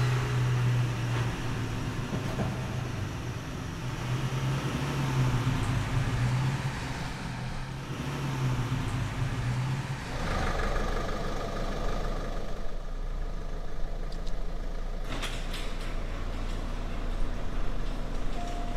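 Car engine running, a steady low drone that changes to a deeper rumble about halfway through.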